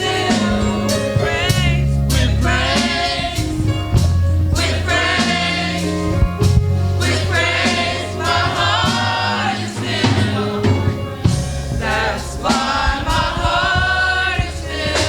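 Youth choir singing a gospel song over instrumental backing, with held low notes and regular beat-like hits underneath.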